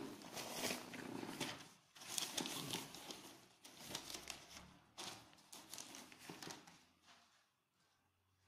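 Rustling and scraping handling noise in uneven bursts, several lasting about a second, as a hand grips and moves a smartphone.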